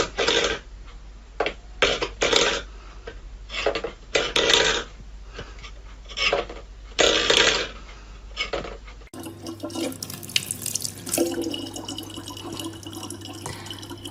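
Water splashing in irregular bursts, then water running steadily from a tap with a low hum beneath it.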